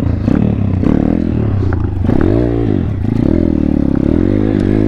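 Thumpstar 140cc pit bike's single-cylinder four-stroke engine running under way, the revs dipping and climbing again about two seconds in and once more near the end.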